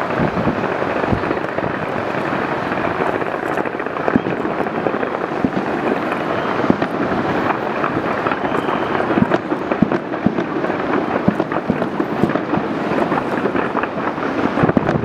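A large fireworks display going off: a continuous dense crackle and rumble with many sharp bangs throughout.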